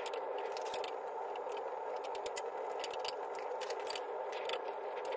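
Hex key turning the steel clamp screws on a Taig mill's column base: scattered small clicks and scrapes of metal on metal as the screws are tightened, over a steady background hiss.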